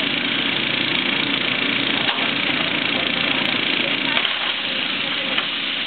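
Caterpillar excavator's diesel engine running steadily as it demolishes a wood-frame house, with a few sharp cracks of splintering boards.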